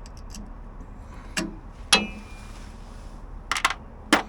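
A few scattered sharp knocks and clinks from tools and parts being handled, one about two seconds in followed by a short ringing tone, over a low steady background hum.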